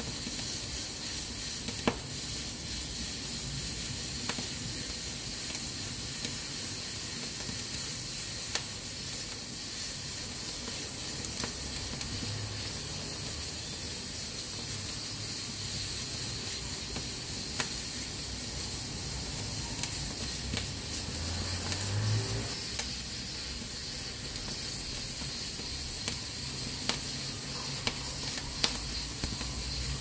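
Pressure cooker on a wood-burning stove hissing steadily as steam vents from its valve, a sign that it is up to pressure. Sharp crackles from the burning firewood come every few seconds.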